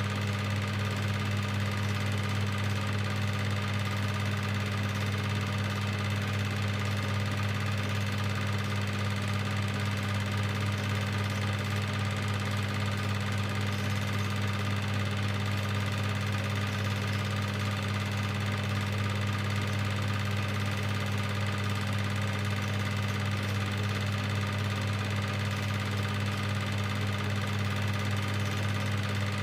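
Cine film projector running: a steady low motor hum that does not change.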